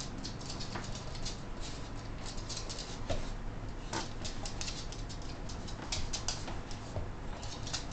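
Claws of a miniature bull terrier tapping on a hard floor as the dog walks about, a rapid, irregular run of light clicks.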